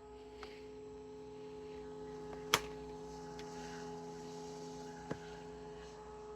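Two small 12 V computer cooling fans mounted back to back on a welding helmet running with a steady hum. A sharp click about two and a half seconds in, and a fainter one near five seconds.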